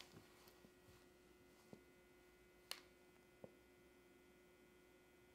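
Near silence: room tone with a faint steady hum and a few soft ticks.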